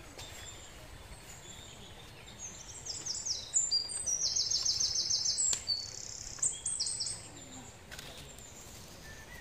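A bird singing a run of high, quick repeated notes and trills. It starts about two seconds in and stops about two seconds before the end.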